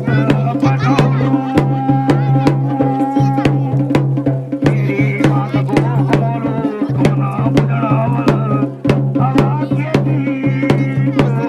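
Garhwali folk music for the Pandav dance: drums struck in a quick, steady rhythm under a wavering melody, over a steady low drone.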